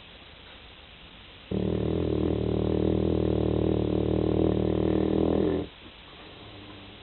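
A pet snoring: one long, steady snore of about four seconds, starting about a second and a half in and cutting off sharply.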